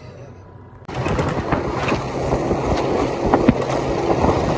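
Boat under way across open water: a loud, steady rush of wind and water noise that starts abruptly about a second in.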